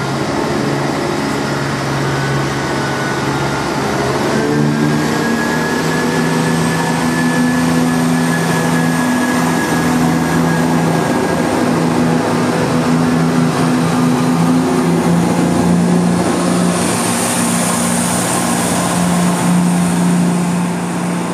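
Diesel train engine running steadily at a station, with a low, even hum. New, higher tones join about four to five seconds in as the engine note rises.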